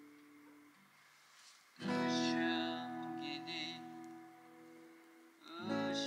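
Acoustic guitar strummed chords: one strong chord about two seconds in that rings out and slowly fades, and a second strum near the end.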